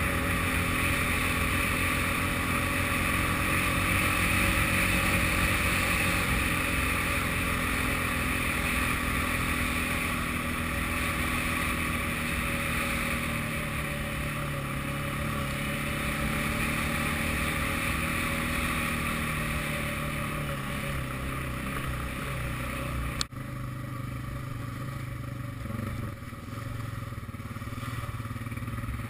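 ATV engine running steadily under way, its pitch drifting gently as the rider holds speed. About three-quarters of the way through there is a single sharp click, after which the engine sounds quieter and lower.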